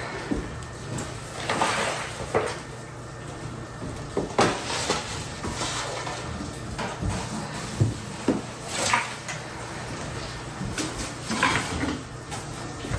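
Irregular knocks, clunks and short scrapes of demolition debris being handled and cleared up, over a steady low hum.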